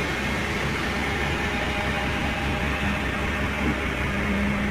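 Heavy machinery running: a steady engine rumble with a low hum that grows stronger near the end.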